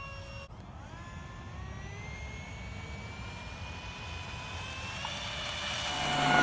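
The electric ducted fan of an RC F/A-18 foam jet whining. After a sudden break about half a second in, the whine climbs steadily in pitch as the fan spools up. Near the end it grows louder with a rushing hiss.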